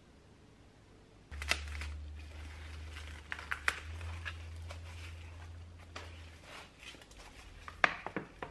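Plastic cling wrap being pulled off the roll, stretched and pressed over a dish, crinkling with several sharp snaps and taps. A low hum sits underneath from about a second in until about six seconds.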